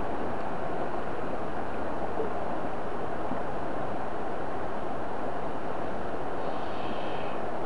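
Shallow mountain stream running over riffles in a steady, even rush of water. A faint high call appears briefly near the end.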